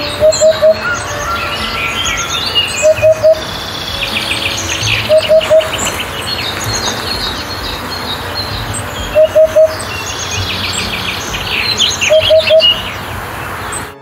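Eurasian hoopoe calling, a low three-note hoot repeated five times a few seconds apart, over a chorus of small songbirds chirping.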